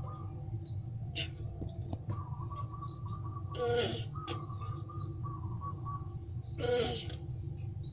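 A mating male tortoise gives two short, breathy calls about three seconds apart, the loudest sounds here. Behind them a small bird chirps repeatedly, about every two seconds, over a steady low hum.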